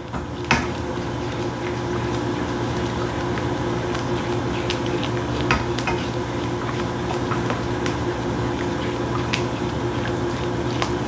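A utensil stirring a thickening homemade cream-of-chicken soup base in a pot over medium-high heat, with light clinks against the pot every second or so over a steady hum.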